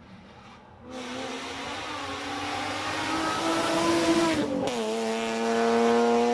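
BMW E36 coupe race car accelerating hard uphill past the listener. Its engine note climbs as it approaches, drops in pitch as it passes close by a little after four seconds in, then pulls on strongly up the road.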